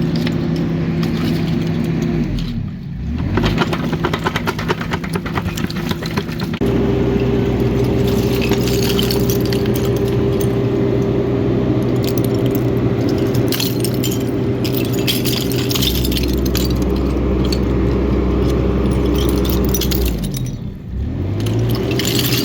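Excavator diesel engine running steadily. Its pitch dips and recovers about two seconds in and again near the end, with many small clinks and rattles of glass and debris over it.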